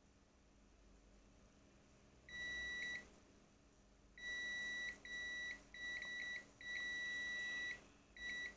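Multimeter continuity beeper giving six bursts of a steady high-pitched beep, of uneven length, starting about two seconds in. Each beep sounds as the probes make contact across the drone's motor-wire and LED pads, showing that the path is connected.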